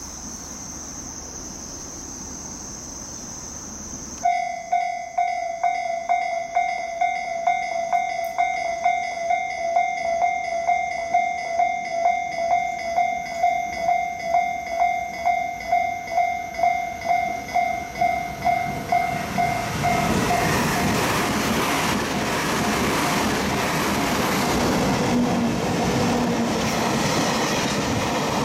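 A railway warning bell starts about four seconds in and dings steadily about twice a second while the train approaches. Around twenty seconds in it gives way to the loud, even rush of a double-headed EF64 electric freight and its long rake of empty oil tank wagons passing at speed.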